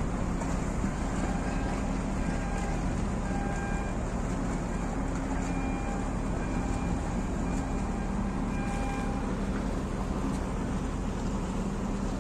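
Marine engine running with a steady low drone and hum.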